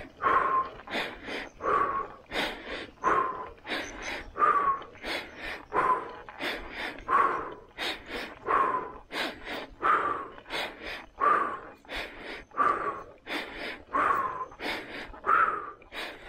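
A cyclist's heavy, labored breathing from the effort of pedaling uphill: hard, even breaths repeating about every second and a half, each with a short whistling edge.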